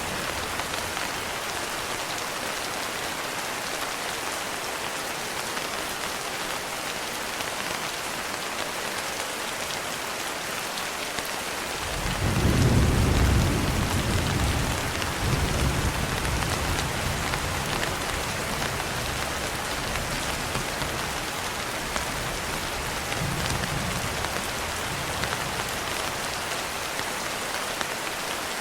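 Steady rain, with a roll of thunder that comes in about twelve seconds in, is loudest for a couple of seconds, and then rumbles on and fades over the next ten seconds or so.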